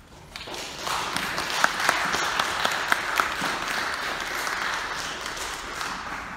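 Audience applauding. The clapping starts about half a second in, is full within the first second, and eases off near the end.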